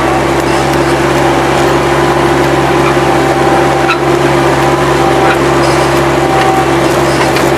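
Bobcat 763 skid-steer loader's engine running steadily, a loud, even drone with a few faint ticks.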